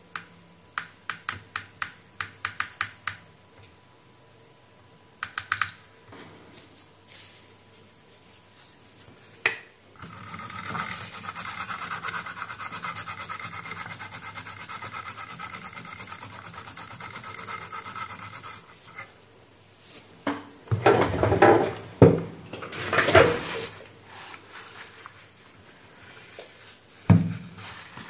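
Hands and test probes working on a circuit board: a quick run of about ten light ticks, a few clicks, then a steady scratchy rubbing for about eight seconds. Loudest is a tissue rubbed over the board for a couple of seconds near the end, followed by a single knock.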